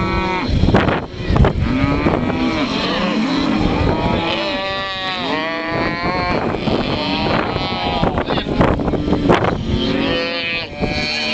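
Cattle bawling: calves held down for branding and cows kept apart from them, many calls overlapping at different pitches, with wind buffeting the microphone.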